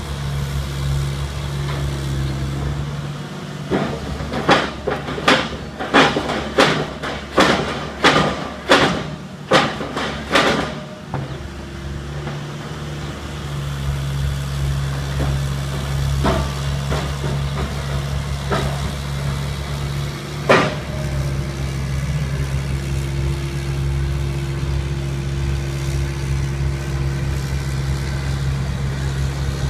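TESCAR CF3 mini piling rig's engine running steadily, with a run of about ten sharp metallic clanks roughly 0.7 s apart a few seconds in, and a single louder clank about two-thirds of the way through.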